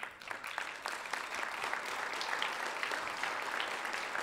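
Audience applauding: clapping breaks out suddenly and carries on as a dense, steady patter of many hands.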